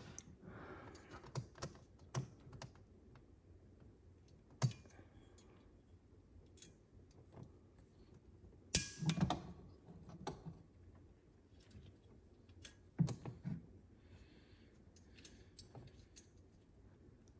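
Scattered light clicks and metallic clinks of fuel injector retaining clips and injectors being handled and tried on the fuel rail. The loudest cluster comes about nine seconds in.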